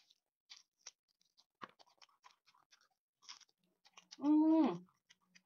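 Raw garlic cloves being chewed, with faint scattered crunches. About four seconds in comes a short hum from the eater, dipping a little in pitch, the loudest sound here.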